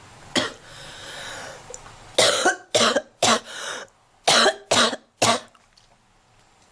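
A girl coughing while smoking a cigarette: one cough, a breath lasting about a second, then a run of about seven coughs in quick succession.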